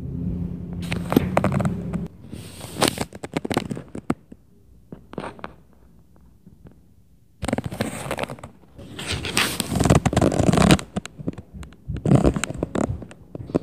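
Stomping and banging, in three spells of a few seconds each: many knocks run together with crackly scraping noise, and a low rumble under the first spell.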